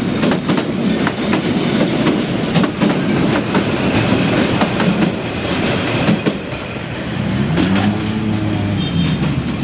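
Passenger train coaches rolling past close by, their wheels clicking over the rail joints in an uneven clickety-clack over a steady rumble. Near the end, as the last car goes by, the clicking thins out and a hum that rises and falls comes in.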